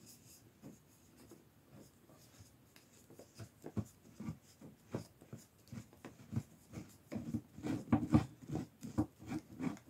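Corner shelf's tubular leg being screwed by hand into its connector through a wooden shelf board: irregular rubbing and creaking strokes that start a few seconds in and grow busier toward the end.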